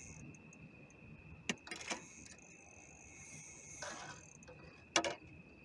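Steady high-pitched trill of night insects, with a few sharp clicks and a brief rattle of fishing tackle being handled; the loudest click comes about five seconds in.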